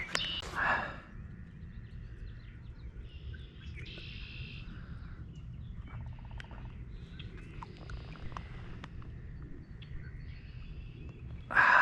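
Outdoor pond-side ambience with birds chirping on and off over a steady low background hum, and a brief louder noise just before the end.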